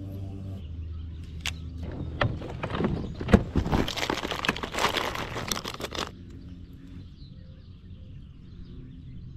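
Plastic soft-bait packets rustling and crackling as a hand digs through a bag of lures, for about four seconds starting two seconds in. A low steady hum fades out before the rustling begins.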